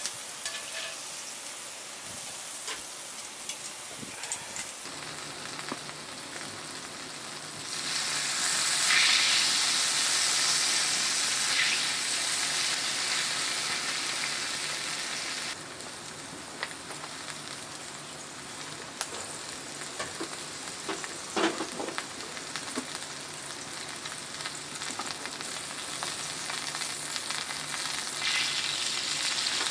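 Food sizzling in a hot frying pan, a steady hiss that gets louder for several seconds in the middle, with a few light clicks.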